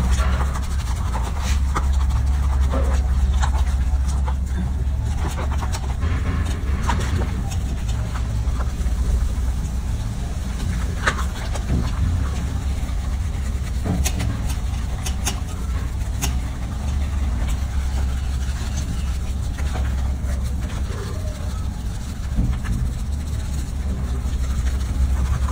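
A steady low rumble throughout, with scattered soft splashes, clicks and rubbing from wet, soapy fur being scrubbed by hand.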